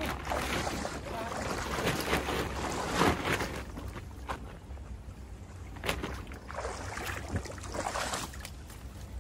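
Shallow stream running over stones, with irregular splashes and rustling as a nylon cast net full of fish is handled in the water; the loudest splash comes about three seconds in.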